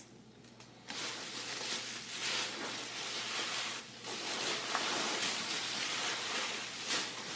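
Plastic bubble wrap packing rustling and crinkling as it is handled and pulled from a shipping box. It is a steady crackly rustle that starts about a second in, with a short lull near the middle.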